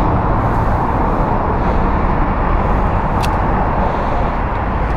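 Steady traffic noise, with a low engine hum that fades out about a second in and a single light click a little past the middle.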